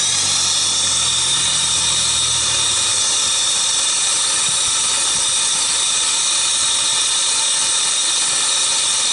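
Air-acetylene turbo-tip torch burning with a steady, loud hiss while it heats copper tubing. A low hum underneath fades away over the first few seconds.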